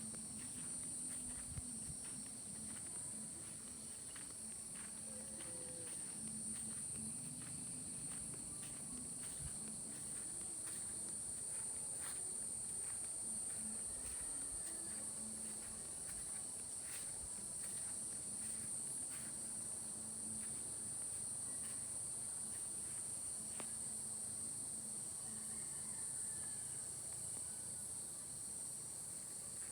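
Steady chorus of insects, a continuous high-pitched shrill trill, with scattered faint clicks.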